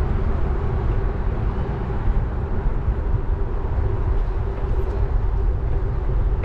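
Wind rumble on a bicycle-mounted action camera's microphone while riding, with a faint steady hum underneath.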